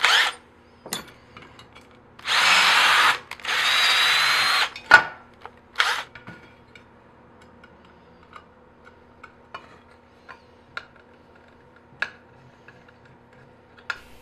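Cordless drill run in two bursts of about a second each, the second with a slightly rising whine. Sharp clicks and light metallic ticks of parts being handled follow.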